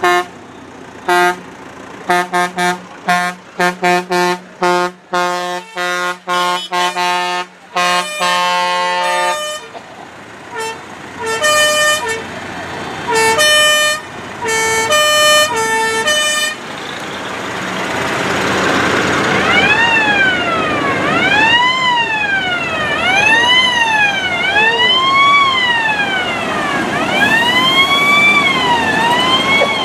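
Vehicle horns honking in many short blasts at several pitches, from the tractors in the parade. About halfway through the horns give way to a siren wailing, its pitch rising and falling about every two seconds.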